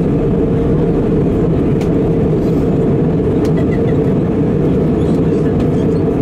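Steady low rumble of an Airbus A320-216's engines and rushing air, heard from inside the passenger cabin while the airliner descends on approach.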